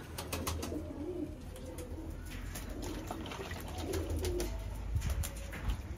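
Domestic pigeons cooing at intervals, with short splashes and clicks from a pigeon being dipped in a plastic bucket of water.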